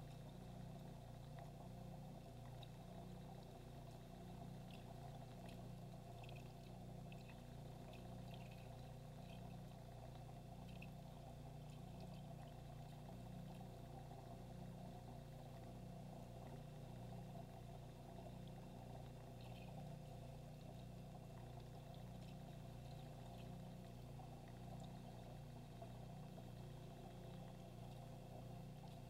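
Faint, steady hum of an aquarium filter pump with water trickling and gurgling, and a scatter of tiny high ticks now and then.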